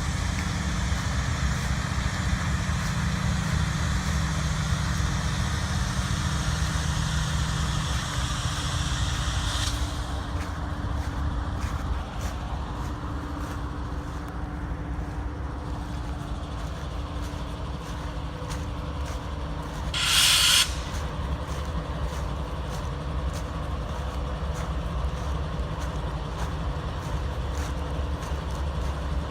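CSX freight train on the rails: a low rumble under a steady hiss that cuts off abruptly about ten seconds in, then a run of rapid clicks from the wheels on the rails. A short, loud air hiss about twenty seconds in.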